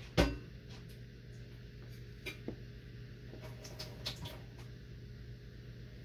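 A sharp knock just after the start, then a few light taps and clicks as hands handle a white paraffin wax lantern and set the tea light inside, over a steady low hum.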